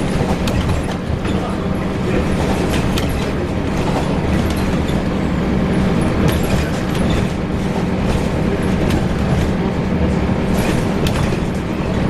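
Scania L94UB single-deck bus with Wright Axcess Floline bodywork running steadily, a low engine hum under frequent rattles and clicks from the body.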